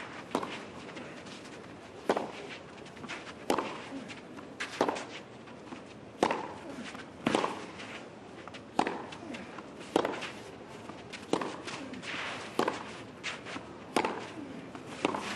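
Tennis ball struck back and forth by racket strings in a long baseline exchange: a sharp pop about every second and a half, a dozen strokes in all, with fainter bounces and footsteps between them.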